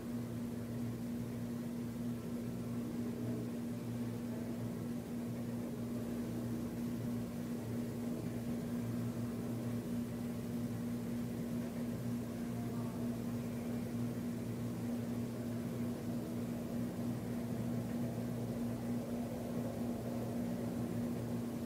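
Steady room tone: a constant low electrical hum over a soft hiss, unchanging throughout.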